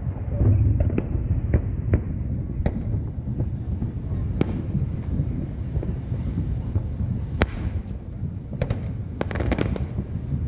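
Aerial fireworks shells bursting over a bay: sharp bangs about a second or two apart over a steady low rumble, with a quick cluster of crackling reports near the end.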